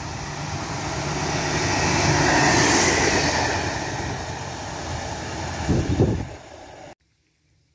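SKPL passenger railcar passing at speed through a station. Its running noise grows loud as it goes by and fades as it pulls away, with a few loud low bumps near the end. The sound then cuts off suddenly.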